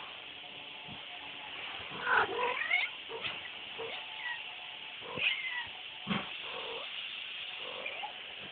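Norwegian Forest Cat kittens mewing: several short, high, sliding calls, the loudest about two seconds in and another around five seconds.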